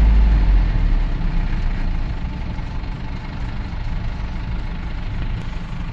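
Vehicle engine running with a steady low rumble. A deep boom at the very bottom fades after about half a second, and the sound settles lower after about two seconds.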